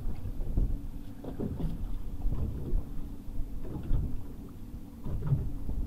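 Charter fishing boat on the water: a steady low engine hum under irregular low rumbling and thudding from wind and water buffeting.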